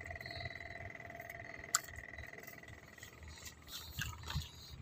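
A frog's steady, finely pulsed trill, one note with a higher overtone, fading out about halfway, with one sharp click just before two seconds in. Near the end comes rustling and knocking of a plastic bait container in a plastic bag being picked up and handled.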